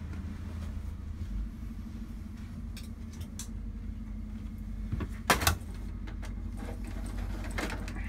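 A steady low mechanical hum, with a few light clicks and one sharp knock a little past five seconds in.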